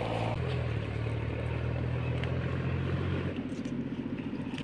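A motor vehicle's engine running with a steady low hum. Its pitch shifts about half a second in, and the hum fades out a little after three seconds.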